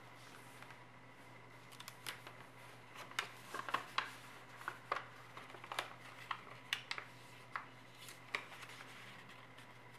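Origami paper crackling and rustling as it is folded and creased by hand: scattered sharp crackles, busiest in the middle, over a faint steady hum.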